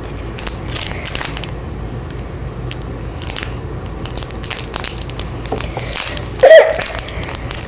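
Foil booster-pack wrapper crinkling and tearing as it is opened by hand, in scattered short crackles over a steady low hum. A brief loud vocal exclamation cuts in about six and a half seconds in.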